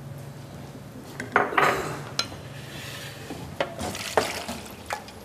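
Metal cooking pots and utensils clattering on a stovetop: a handful of scattered knocks and clinks over a faint steady low hum.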